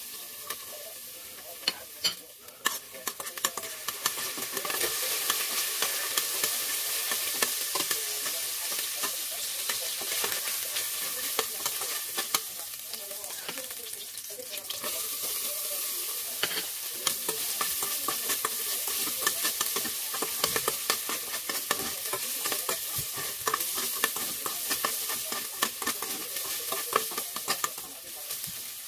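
Minced garlic sizzling in hot oil in a stainless steel pot, with a spoon clicking and scraping against the metal as it is stirred. The sizzle grows louder a few seconds in, dips briefly about halfway, then rises again as a second lot of garlic goes in.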